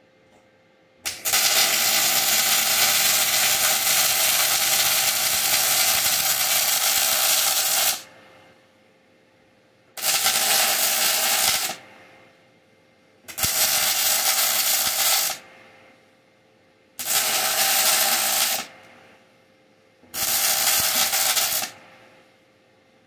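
Electric welding arc crackling and hissing in five runs: one long bead of about seven seconds, then four short ones of about two seconds each with brief pauses between, as the bumper is welded.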